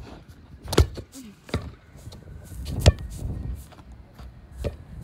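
Soccer ball kicked and bouncing off a brick wall: a string of sharp thumps, the two loudest about a second in and near three seconds, with lighter knocks between.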